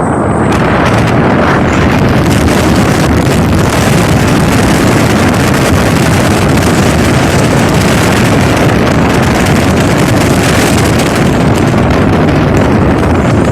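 Motorboat under way: its engine running steadily at speed, with the rush of water and wind buffeting the microphone.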